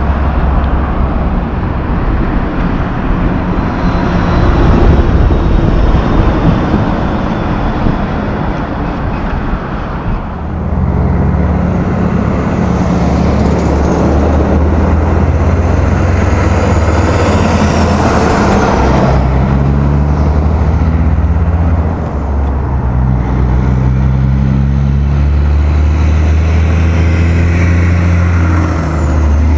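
Road traffic passing, then loaded logging trucks' diesel engines droning low and steady as they pass close by, one after another, from about a third of the way in.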